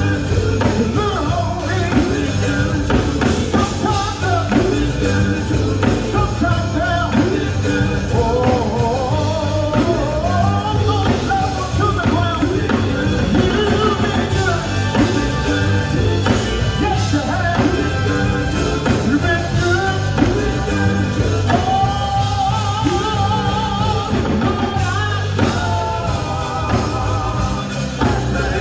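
Live gospel band playing with a steady beat, and a singer's voice bending and wavering over it in long runs.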